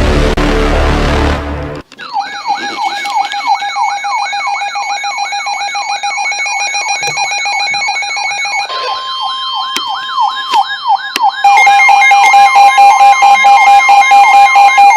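Alarm and siren tones. After a brief loud noisy burst at the start, an electronic siren sweeps up and down about twice a second over steady alert tones. About three-quarters in, a loud steady alert tone takes over.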